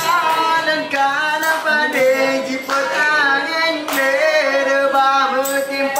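Voices singing a traditional Acehnese song in long, melodic held notes that glide between pitches, with a few sharp beats struck under the singing.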